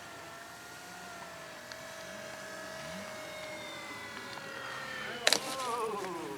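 Radio-controlled model warbird's motor and propeller making a steady whine that drifts slowly in pitch, then a sharp knock about five seconds in, after which the whine falls steadily in pitch.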